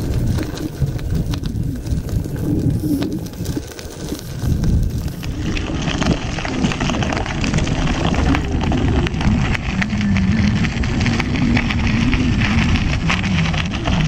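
Ninebot One E+ electric unicycle's tyre rolling over a gravel path, with wind rumbling on the microphone. From about six seconds in, the crunch and crackle of the gravel grows louder and brighter.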